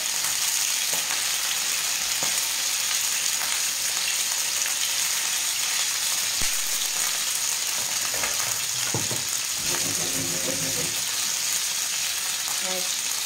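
Tuna slices searing in hot oil in a frying pan, sizzling steadily, with a few light clicks of a utensil as they are turned.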